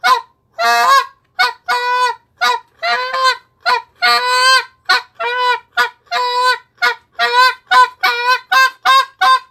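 Handheld Canada goose call blown in a quick run of about twenty honks, short clucking notes mixed with longer drawn-out ones, imitating a Canada goose's jump moan.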